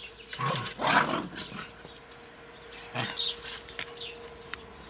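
Puppies barking: a loud burst about a second in and a shorter one about three seconds in.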